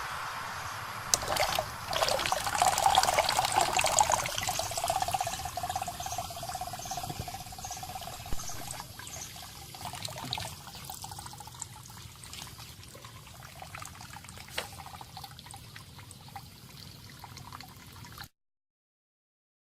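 Water trickling and splashing, with scattered small clicks; it is loudest a few seconds in, fades gradually and cuts off suddenly near the end.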